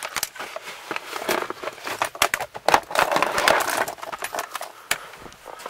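Clicks, light rattles and rustling from hands working up under a car's dashboard, thickest about three seconds in.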